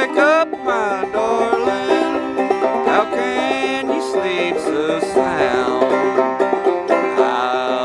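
Background bluegrass-style music with fast banjo picking.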